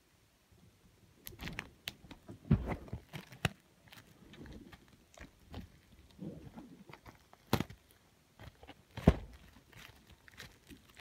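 Hands handling a DVD package off-camera: irregular clicks, knocks and crinkling, with two louder thumps about two and a half and nine seconds in.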